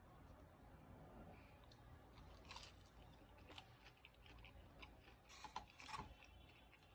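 Faint close-up eating sounds: chewing with scattered wet mouth clicks, a few louder ones in the second half.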